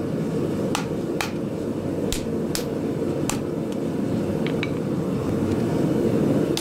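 Hand hammer striking hot mild steel on an anvil as the wrapped eye of an axe body is bent closed: five sharp blows in the first three and a half seconds, then two light taps. A gas forge runs underneath with a steady, loud noise.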